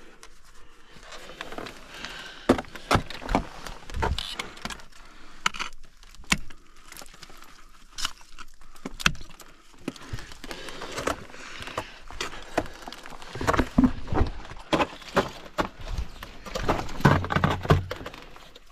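Irregular clinks and knocks of metal climbing gear being handled, with carabiners and hardware jangling against each other.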